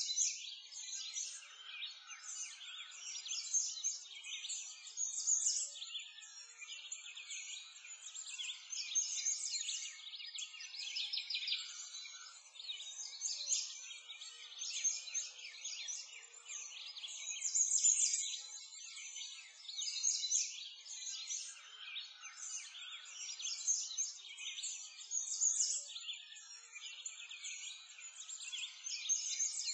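Many songbirds chirping and singing at once, a dense, continuous chorus of quick high twitters and trills.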